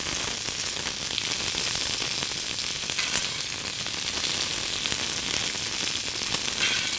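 Côte de bœuf (bone-in rib-eye) sizzling steadily in hot oil and rendered fat in a cast iron pan, pan-roasting on high heat.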